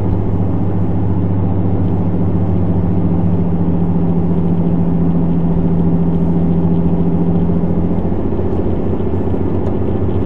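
Supercharged Toyota 1GR-FE V6 heard from inside the Hilux's cab while cruising at steady speed: a steady low engine and exhaust drone over road noise, quiet at cruise. One of the droning tones drops away about eight seconds in.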